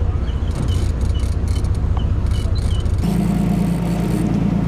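Engine running with a steady low rumble; about three seconds in its note changes to a steadier, slightly higher hum.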